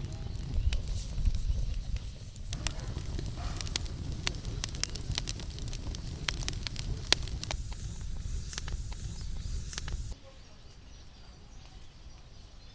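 Campfire crackling, with sharp irregular pops and snaps over a low rumble and a steady high hiss.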